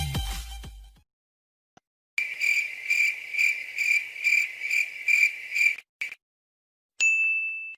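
Crickets chirping, the 'awkward silence' meme sound effect: a high pulsing chirp repeating about two and a half times a second for some four seconds. Near the end a steady high-pitched beep starts abruptly.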